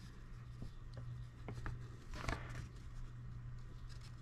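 Faint rustling and small clicks of a paper instruction sheet handled in the hands, over a low steady hum.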